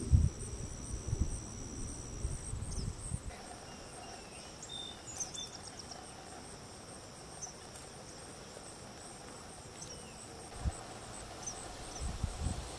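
Insects trilling steadily at a high pitch, one pulsing trill and a second steady one that stops about two and a half seconds in, with a few short bird chirps. Low rustling knocks in the first three seconds and again near the end.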